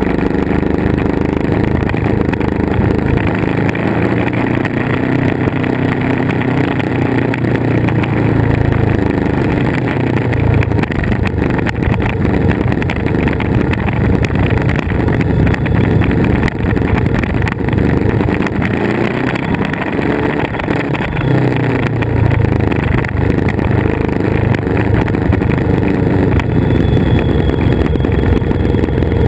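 Motorcycle engine running under way, heard from on board with steady wind noise, its note rising and falling with the throttle through the bends.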